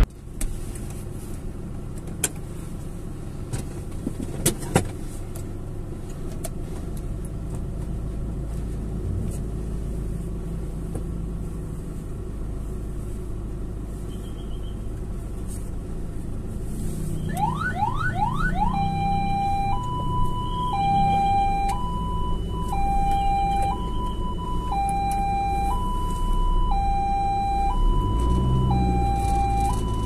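Low vehicle engine rumble with a few sharp clicks. About 17 seconds in, an ambulance's electronic siren gives three quick rising whoops, then settles into a two-tone hi-lo wail that switches pitch about once a second.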